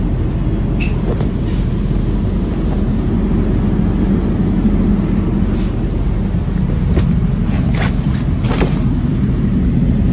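Steady low rumble inside a stationary air-conditioned passenger train carriage, with a few short clicks and knocks.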